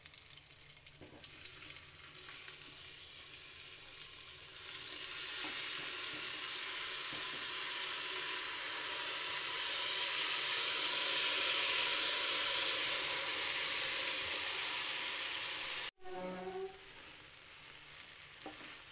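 Cashews, almonds and raisins frying in ghee in an aluminium pressure cooker, stirred with a spatula. About four and a half seconds in, soaked rice poured into the hot ghee sets off a much louder sizzle that holds until it cuts off suddenly near the end.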